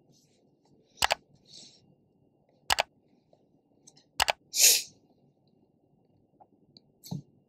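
Sound effects of an animated subscribe-button overlay: three sharp mouse-click sounds about a second and a half apart, each a quick double click, then a short hissing whoosh, the loudest sound, just under five seconds in.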